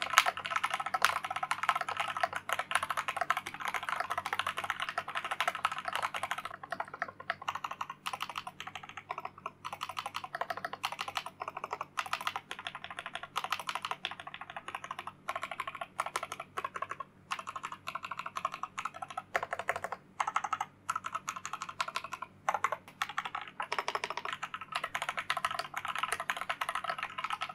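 Fast, continuous typing on a Darkflash GD100 wireless mechanical keyboard with yellow linear switches and PBT keycaps: a dense run of key clacks, broken by a few short pauses in the second half.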